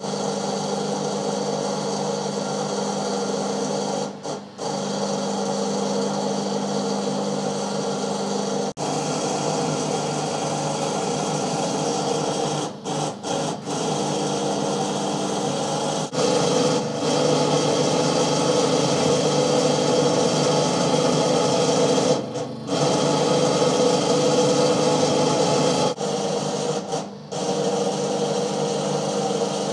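Rim-straightening machine running steadily while an aluminium alloy wheel rim is worked on it, a constant mechanical hum with several steady tones. It gets louder about halfway through and drops out briefly a few times.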